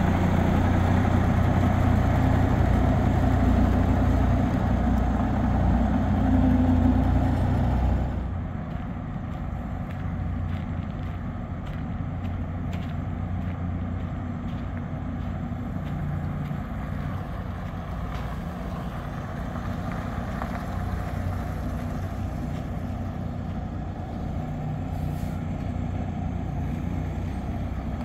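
Diesel engine of a bobtail semi tractor running as the truck pulls past close by, a loud low rumble. About eight seconds in it drops suddenly to a quieter, steady rumble as the truck moves off across the lot.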